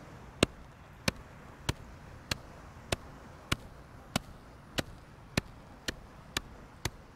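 Flat-headed shovel blade slapping a pile of loose beach sand to pack it down: a steady series of sharp pats, a little under two a second.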